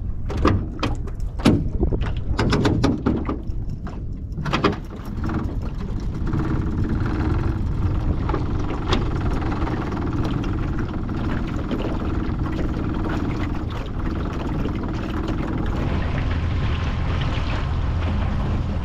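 Small outboard motor on an aluminium dinghy running steadily, after a clatter of knocks in the first few seconds. The engine gets louder near the end as the boat gets underway.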